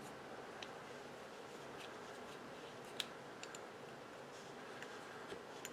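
Faint, scattered small clicks and ticks of a screwdriver turning a tiny self-tapping screw into a model kit part, about eight in all, the sharpest about three seconds in, over a steady low hiss.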